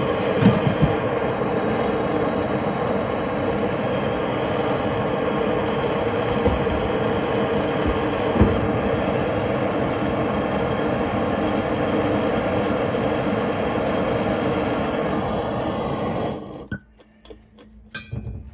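Gas soldering torch flame burning steadily as it heats a copper tee. The flame cuts off suddenly about sixteen seconds in, followed by a few light clicks and taps.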